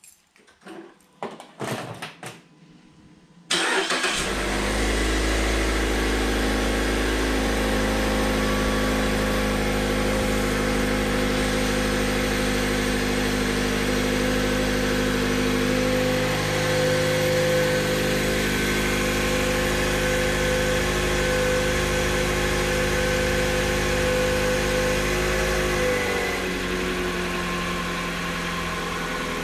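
2012 Mazda 3's four-cylinder engine cold-started by remote start: a few clicks, then the engine catches about three and a half seconds in and runs at a steady fast cold idle. Near the end the idle drops to a lower, quieter speed. At about 231,000 miles it runs smoothly, which the owner takes as healthy.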